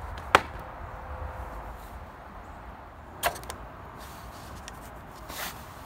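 Handling of a homemade wooden sled deck at a pickup's tailgate: a sharp click just after the start, another about three seconds in, and a brief scrape near the end, over steady outdoor background noise.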